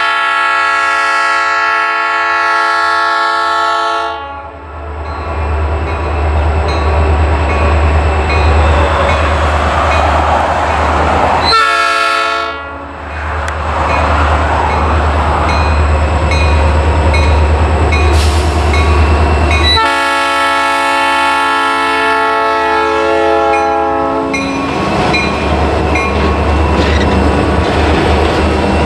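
Diesel freight locomotive's multi-chime air horn: a long blast, a short blast about twelve seconds in, and another long blast about twenty seconds in. Under the horn the lead EMD GP40-2R's engine and the other units rumble steadily as the train approaches and the freight cars roll past.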